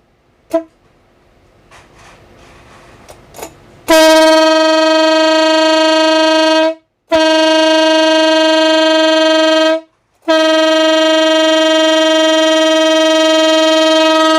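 Stainless-steel ship air horn blown by a mini compressor: a short toot, then three long steady blasts at one pitch, each about three seconds, with short gaps between them.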